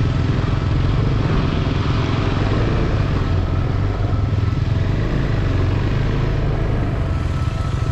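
Motorcycle engine running steadily under load while climbing a steep, rough off-road track.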